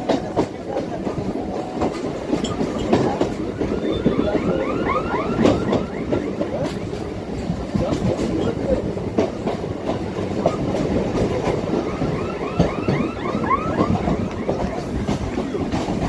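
EMU local train running, heard on board: a steady rumble with clickety-clack of the wheels over rail joints. Twice a quick run of short, higher squeaky chirps rides over it.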